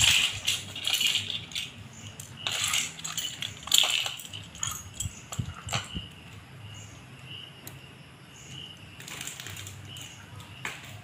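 Loose plastic LEGO bricks and plates clicking and clattering against each other and a ceramic tile floor as hands sift through a pile, the clatter densest in the first half and then quieter.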